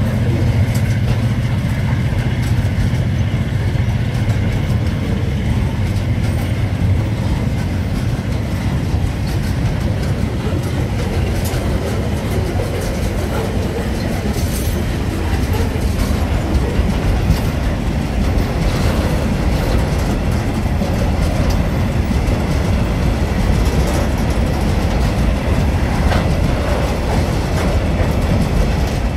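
Freight wagons of a diesel-hauled train rolling past close by: a steady rumble of steel wheels on rail with clickety-clack over the rail joints. The locomotives' low engine drone fades away in the first couple of seconds.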